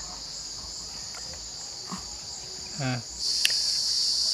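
Insects chirping steadily and high-pitched in the background, louder from about three seconds in, with a brief pitched call just before that.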